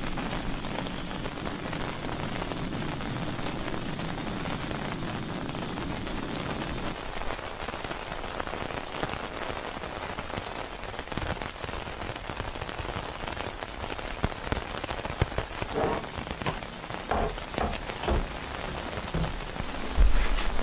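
Steady rain falling, with scattered louder drops in the last few seconds. A low rumble sits under the rain for the first third and then stops.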